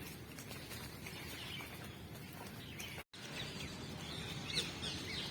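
Many small birds chirping over a steady low outdoor background noise. The sound drops out completely for an instant about three seconds in, and the chirps are louder after it.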